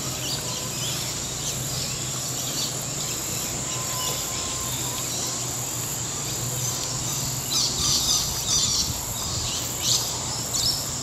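Steady high-pitched drone of insects, with a few short bird chirps clustered in the second half.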